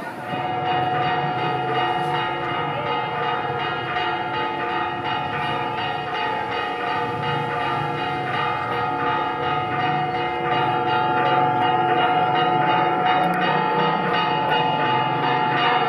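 Several church bells ringing continuously, their tones overlapping into a sustained ringing peal.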